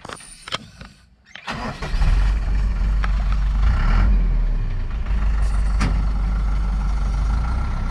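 Loaded logging truck's diesel engine, nearly silent at first, starts up about a second and a half in and then runs loudly with a heavy low rumble. The truck is bogged with its rear wheel sunk in mud.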